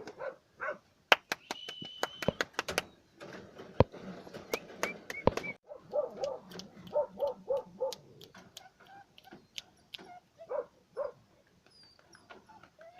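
Young puppies whimpering and yipping in short squeaky calls, with a run of about five in quick succession around the middle, mixed with sharp clicks and knocks.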